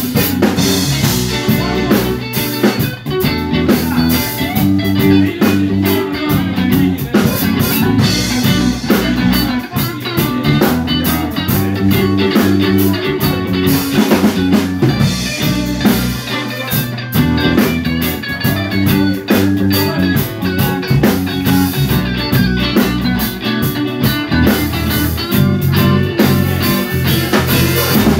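Live band playing an instrumental stretch with no singing: electric guitars over bass guitar and a drum kit.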